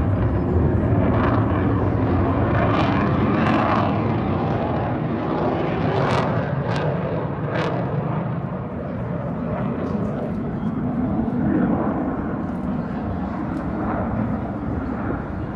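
Airplane engine roaring overhead, loudest in the first few seconds, then slowly easing off as it flies away. A few brief sharp cracks sound about six to eight seconds in.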